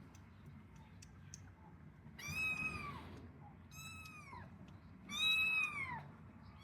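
A kitten meowing three times, each high call rising and then falling in pitch, the last the loudest.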